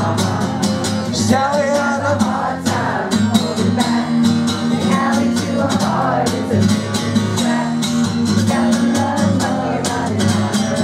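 Live guitar accompaniment with a small crowd singing along to a rock song.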